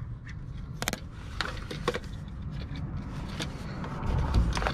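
Scattered plastic clicks, knocks and rubbing as a new EVAP charcoal canister is pushed and worked into its mount, with a louder low rumble of handling near the end.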